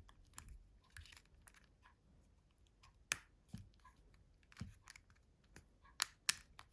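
Small plastic parts of a Nokia 5220 XpressMusic handset being handled and pressed together, giving faint scattered clicks and taps. There is a sharper click about three seconds in and two more near the end.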